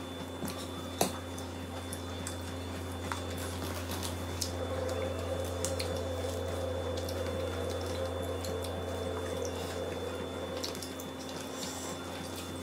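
Fingers squishing and mixing a wet fish-paste and vegetable mixture in a bowl, with small scattered clicks and one sharper click about a second in, over a steady low hum.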